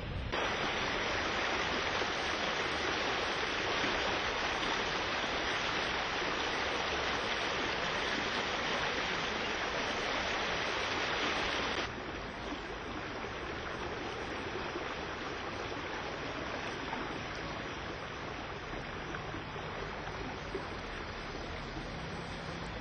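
Floodwater rushing through a street: a steady hiss of flowing water with no single events. It is louder and brighter for the first twelve seconds, then drops suddenly to a softer rush.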